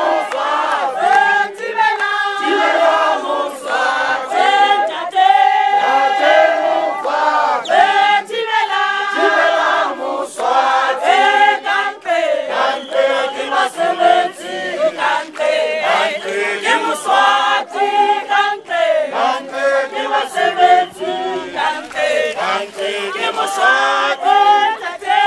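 A crowd of protesters singing a protest song together, many voices at once, with sharp hand claps scattered through the singing.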